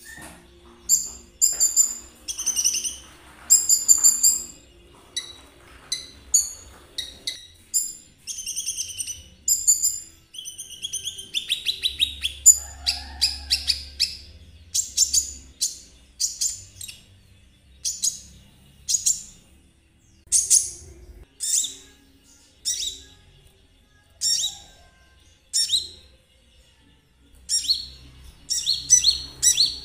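Konin songbird singing a long, varied song of short high chirps and whistled phrases in quick succession, with a dense rapid trill about twelve seconds in.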